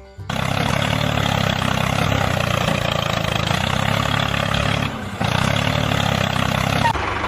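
Engine running steadily, with a brief dip about five seconds in.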